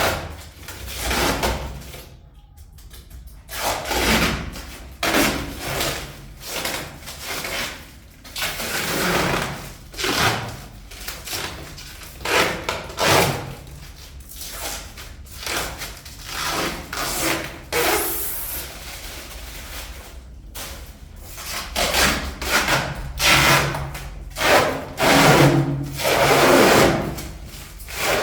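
Repeated rubbing, scraping and rustling of packaging being pulled and torn off a new fridge during unboxing, in irregular bursts.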